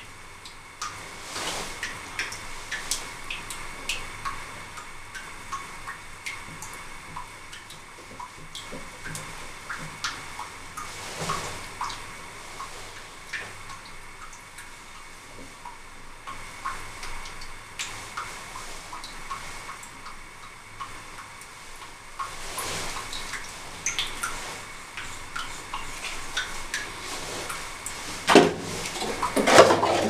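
Scattered small clicks, taps and rustles of hands wrapping thread-seal tape onto a brass pipe nipple and screwing it into the pressure-tank fitting. A faint steady high whine runs underneath, and the handling gets louder near the end.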